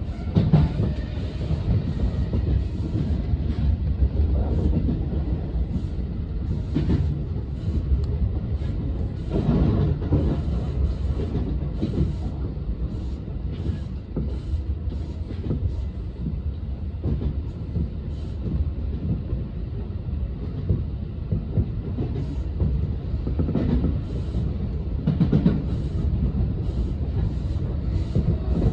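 Electric commuter train running along the line: a steady low rumble of wheels and traction equipment, with occasional clacks as the wheels pass over rail joints.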